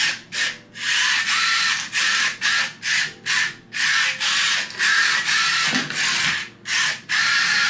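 Small combat robot's drive motors and wheels spinning it around on a wooden laminate floor in about a dozen bursts of uneven length, with short gaps as the stick is pushed and let go. It is a drive test of the steering trim, which makes the robot turn toward the side it has been biased to.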